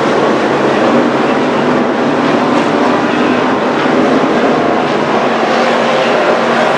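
Street stock race car engines running on track, a loud steady noise with several engine tones drifting up and down in pitch.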